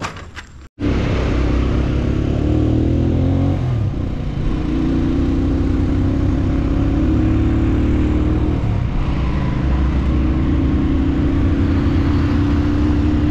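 Motorcycle engine running steadily as the bike rides along a road, heard from on the bike. Its note eases off briefly twice and picks up again.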